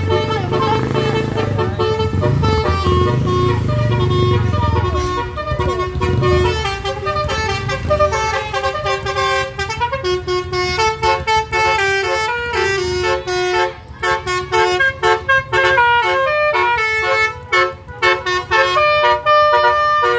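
Musical air horn on a departing car playing a tune in quick stepped notes. Engine rumble lies under it for the first six seconds or so and then fades, and the note changes grow faster from about ten seconds in.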